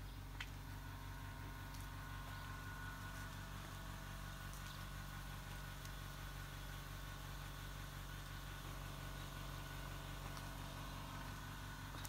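Engine idling steadily: a low hum with a fast, even pulse and a faint steady whine above it. A single small click comes about half a second in.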